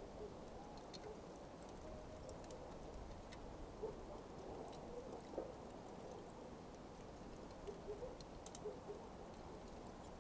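Smouldering coals crackling: scattered small pops and ticks at irregular times over a steady low hiss.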